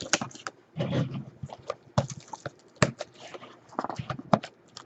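Sealed trading-card boxes being handled and unwrapped: irregular sharp clicks, taps and short crinkly rustles of cardboard and plastic wrap.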